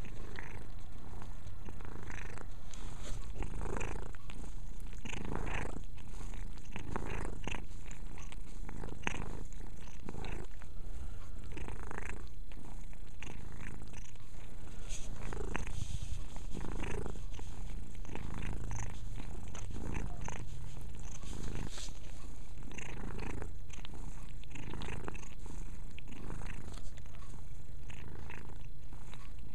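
Calico cat purring steadily close to the microphone, with repeated short wet licking sounds about once or twice a second as she grooms her fur.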